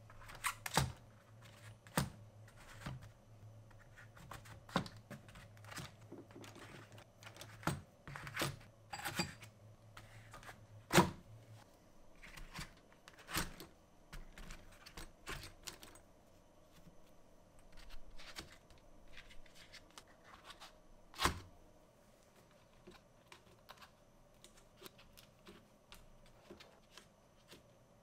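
Chrome sockets and a ratchet clicking and clinking as they are set by hand into a foam inlay in a metal tool case: irregular light taps and knocks, a few sharper ones standing out, thinning out near the end. A faint low hum stops about halfway through.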